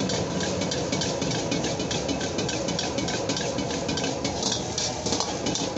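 Fried rice being stir-fried in a wok over a gas wok burner: a steady rush from the burner under quick, repeated scrapes and clinks of a metal ladle against the wok as the rice and vegetables are tossed.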